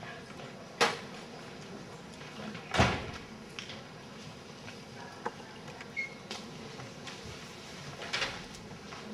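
Handling noise at a lectern: a few scattered knocks and bumps, the loudest about three seconds in, with a short faint beep about six seconds in.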